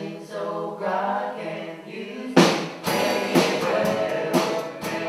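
A man singing a song to his own acoustic guitar. About halfway through, sharp percussive beats join in at about two a second.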